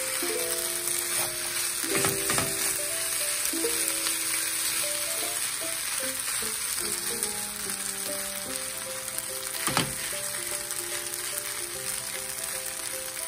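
Fried rice sizzling in a hot nonstick pan while a wooden spatula and a silicone spatula stir and scrape it, with a few sharper scrapes against the pan.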